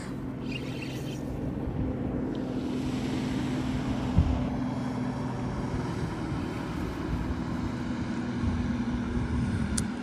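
Motorboat running past at speed, a steady low engine hum, with wind on the microphone and a brief thump about four seconds in.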